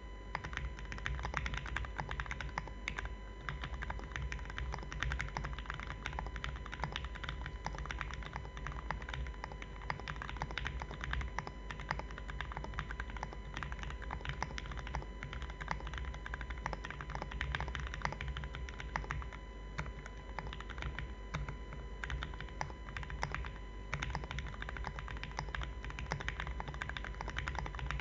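Continuous typing on an acrylic Alice-layout mechanical keyboard with lubed Gateron Pink switches, an FR4 plate and GMK keycaps: a dense, irregular stream of keystroke clacks.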